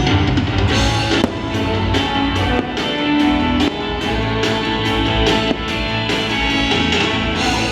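Upbeat music with a steady drum beat, bass and guitar.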